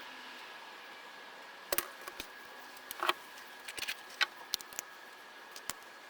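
Light clicks and taps of small parts and hand tools being handled during work on a cordless impact driver, about a dozen scattered irregularly, with a faint steady high tone underneath.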